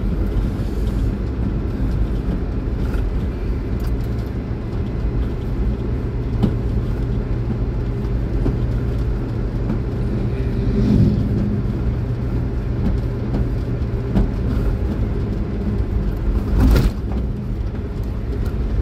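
A car's engine and tyre noise heard from inside the cabin while driving at a steady speed: a constant low rumble with a steady hum. There is a brief louder rush near the end.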